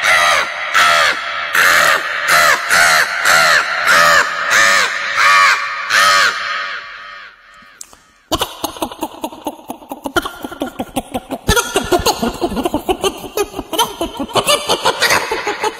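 A man's voice mimicking a crow: harsh caws repeated about twice a second, fading out around seven seconds in. After a short pause comes a fast run of short clucks, like a flock of chickens.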